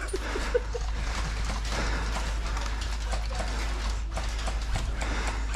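Footsteps on rough ground with gear clattering as a group of airsoft players walks, over a steady low rumble of wind on the microphone.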